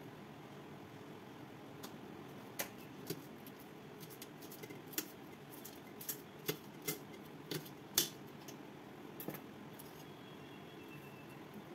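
Scattered light clicks and clinks of kitchen handling, a small plastic container and steel bowls and plates being moved, with the loudest click about eight seconds in, over a steady low room hum.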